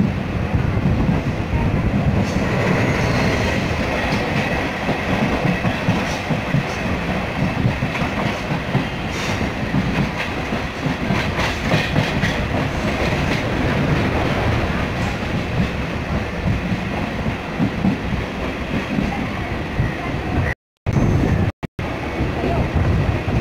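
Suburban electric local train running on the rails, heard from inside a coach at the window: a steady rumble of wheels with irregular clatter as they cross rail joints and points. The sound cuts out completely twice, briefly, near the end.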